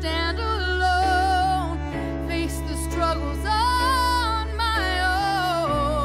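Slow Christian ballad: a held, wavering melody line over sustained low chords that change every few seconds.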